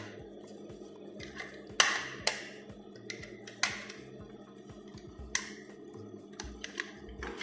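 Plastic housing of an optical (photoelectric) smoke detector head being prised open by hand, giving irregular sharp clicks and snaps. Background music plays underneath.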